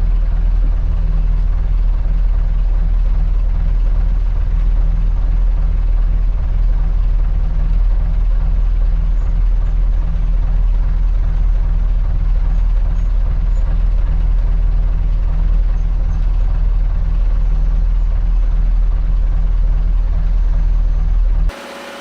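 A wooden motor cruiser's inboard engine running steadily underway, a loud low drone heard from on board. Near the end it cuts off abruptly to a much quieter hum.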